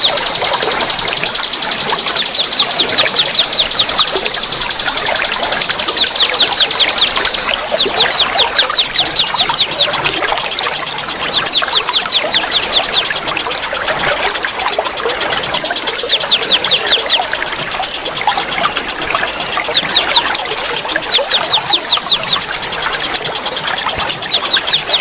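Songbird calling in repeated bursts of rapid, evenly spaced high notes, each burst about a second and a half long, over the steady trickle of running water. A thin, steady high whistle runs for several seconds in the middle.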